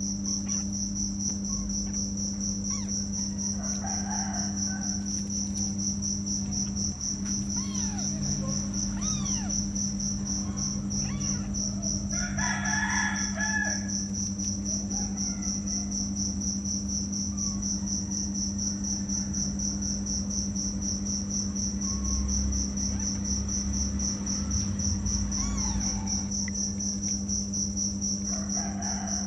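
Crickets chirping in a steady, high, pulsing trill, over a steady low hum, with a few short higher calls now and then.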